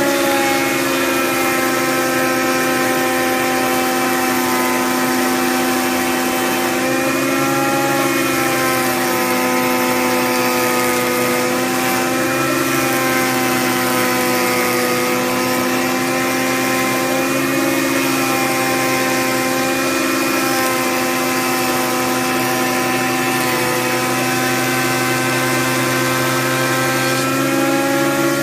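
Porter-Cable benchtop jointer running with a steady, high-pitched motor whine; the pitch dips slightly several times as a board is pushed across the cutterhead.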